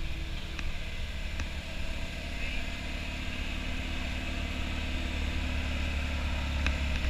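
Tow truck's engine idling steadily, a low even hum, with a few faint ticks over it.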